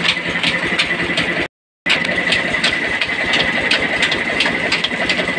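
Village motor-driven flour mill (atta chakki) running steadily while grinding grain into flour, with a constant whine and a regular rapid ticking about three times a second. The sound drops out completely for about a third of a second around a second and a half in.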